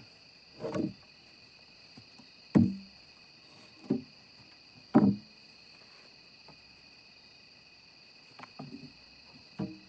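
Several separate thuds and knocks, one every second or two, the two loudest about two and a half and five seconds in, over a faint steady high hiss. No chainsaw is running.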